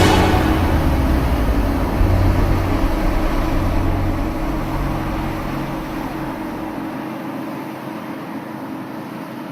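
Combine harvester running: a steady engine and machinery rumble that gradually fades out, its deep low end dropping away about seven seconds in.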